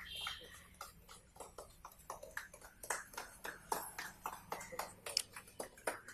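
A small group of people clapping unevenly, faint and irregular.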